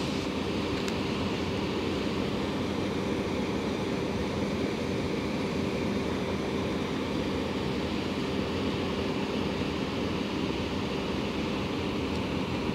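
Steady rushing noise with a constant low hum of a few held tones underneath, like a motor or fan running without change.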